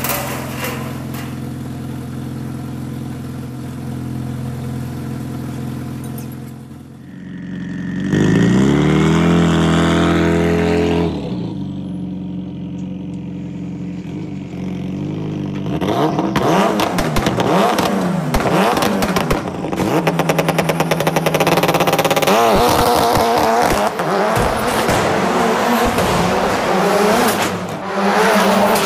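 Ford Fiesta rally car's engine idling steadily, revved hard about eight seconds in and dropping back, then from about sixteen seconds in driven hard: the engine revving up and down over and over with rapid clattering.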